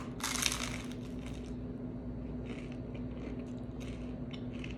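Food being bitten and chewed close to the microphone: a brief crunch just after the start, then small scattered chewing crackles. A steady low hum runs underneath.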